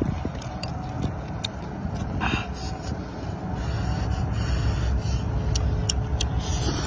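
Instant noodles being slurped and chewed close up, with wet mouth clicks and a few short sucking hisses, over a steady low rumble.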